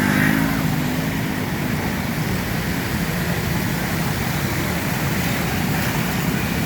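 Steady street traffic noise with motor vehicles running, and a brief pitched engine note at the very start.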